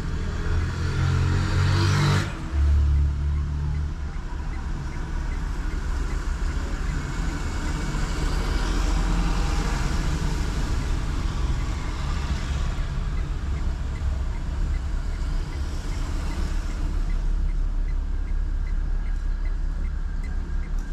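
Car driving: steady engine and tyre rumble. In the first two seconds the engine note is louder, then it breaks off briefly about two seconds in before the steady running resumes.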